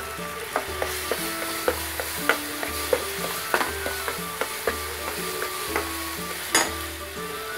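Metal spatula stirring and scraping a frying paste around a nonstick pan, with a light sizzle and repeated clicks of the spatula against the pan, the loudest about six and a half seconds in. Soft background music with a regular bass pulse runs underneath.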